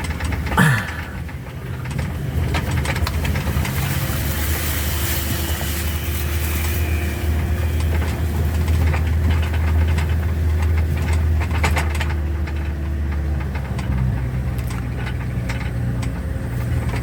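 A vehicle's engine running steadily with road noise while driving. About half a second in there is one brief, loud sound with a quick falling pitch.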